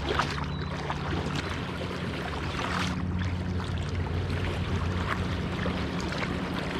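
Kayak being paddled: water splashing and dripping off the paddle blades in short strokes, over a steady low hum.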